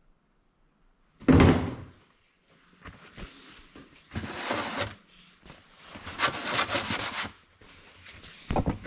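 Handling noises under the hood: a loud thunk about a second in, then several irregular bursts of rubbing and rustling.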